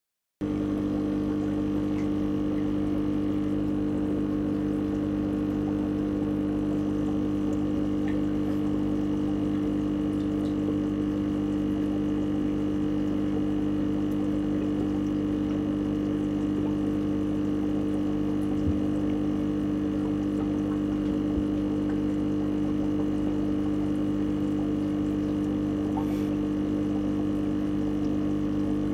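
Aquarium pump humming steadily, with a low wash of moving water.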